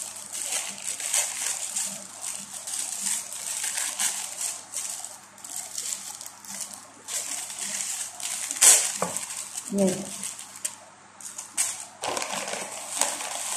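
Thin plastic film rustling and crinkling in irregular bursts as it is peeled off raw burger patties by hand.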